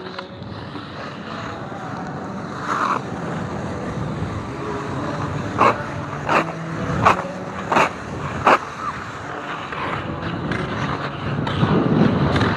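Hockey skate blades gliding and scraping on rink ice under a steady rushing noise. In the middle come five sharp blade scrapes, one about every three-quarters of a second, as the skater takes strides.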